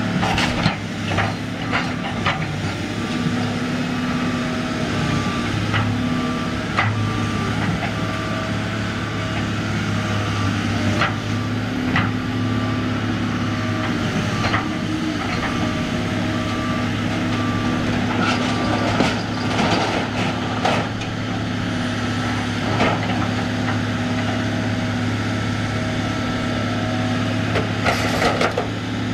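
Tracked excavator's diesel engine running steadily as its grapple tears into a wooden, shingled roof, with scattered cracks and crunches of splintering wood and roofing that come thickest about two-thirds of the way through.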